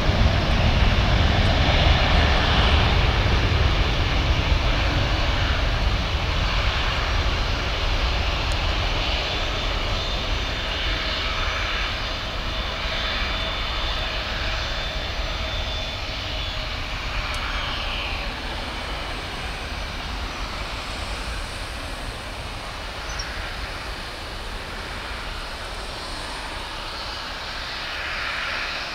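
Boeing 737-800's CFM56-7B jet engines at takeoff thrust: a continuous low rumble that slowly fades as the aircraft moves away.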